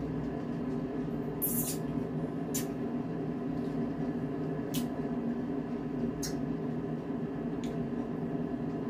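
A steady machine hum fills a small room, with five or so short sharp clicks and smacks spread through it, from fried chicken being torn apart and eaten by hand.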